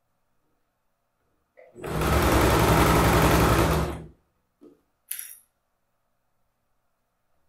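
Electric sewing machine stitching one short run, starting about two seconds in and stopping about two seconds later, its needle strokes pulsing evenly. Two brief faint noises follow.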